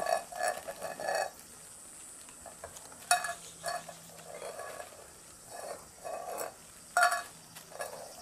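A cat licking and eating from a small metal tin can, its tongue and mouth scraping the inside of the can in short bouts, with a few sharp metallic clinks as the can knocks about.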